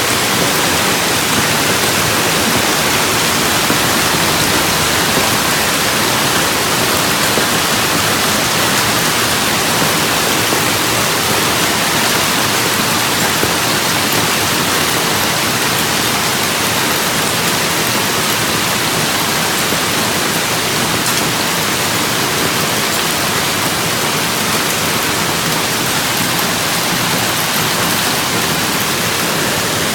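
Hailstorm: hail and rain falling hard in a loud, steady, dense hiss that does not let up.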